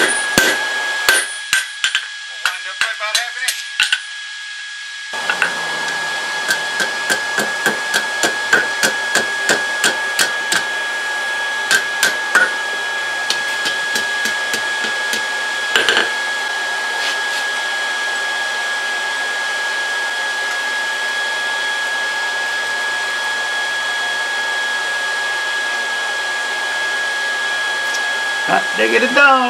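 Hand hammer striking a hot 3/8-inch steel bar on an anvil to flatten it: a few scattered blows at first, then a run of about two strikes a second that thins out and stops about halfway through. A steady whirring hum with a fixed tone sits underneath from about five seconds in.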